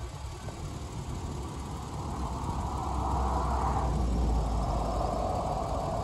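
A vehicle driving past on the highway: its tyre and road noise swells to a peak about four seconds in, then drops in pitch as it goes by.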